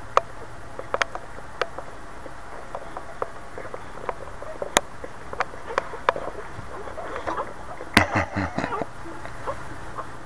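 Boxer mother and her newborn puppies making small wet clicks and squeaks as she licks and nuzzles them, with a louder cluster of squeaks and smacks about eight seconds in.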